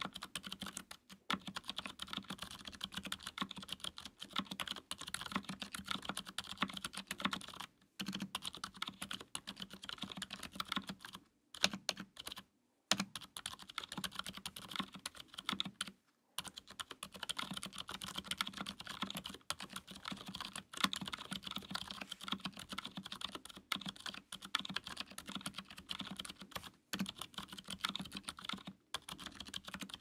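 Fast, continuous typing on a 60% mechanical keyboard fitted with Gazzew Boba U4 62g silent tactile switches (Krytox 205g0 lubed and filmed), a brass plate in a plastic case, and GMK keycaps. The keystrokes run in a dense stream broken by a few brief pauses, the longest about twelve seconds in.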